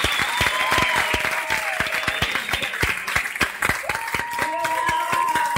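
Audience applauding, with separate sharp handclaps and voices whooping over the clapping.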